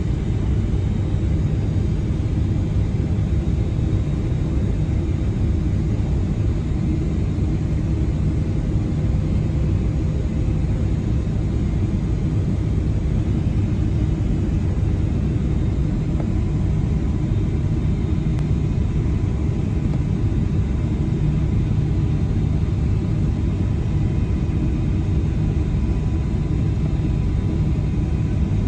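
Steady low rumble inside the cabin of a Boeing 777-300ER on final approach, heard from a window seat beside its GE90 engine: engine and airflow noise, with a faint steady whine above it.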